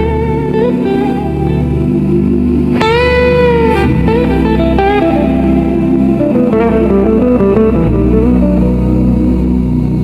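Slow blues guitar music: a lead guitar plays drawn-out notes, one bent up and back down about three seconds in, over a steady low backing.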